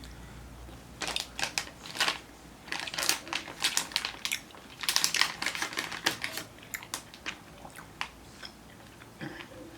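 Close-up chewing of a soft, chewy candy, with irregular wet mouth clicks and smacks several times a second.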